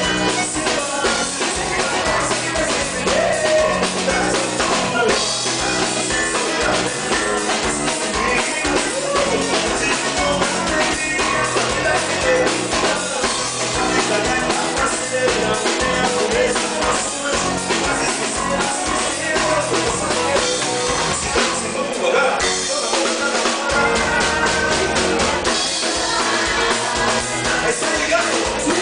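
A band playing a dance tune with a steady drum-kit beat and singing. The bass drops out for a moment about three-quarters of the way through.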